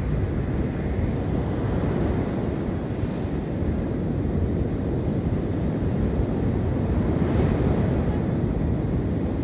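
Sea surf washing on a beach, with wind blowing on the microphone, steady throughout.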